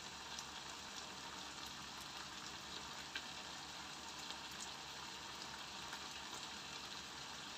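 Chicken frying in a wok on a gas stove: a faint, steady sizzle with a few small pops.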